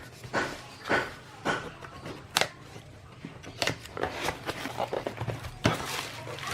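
A few sharp clicks among lighter handling noises.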